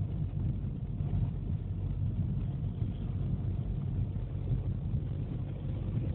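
Mazda 6 diesel cruising at about 55 km/h in fourth gear on cruise control, heard from inside the cabin: a steady low engine and road rumble.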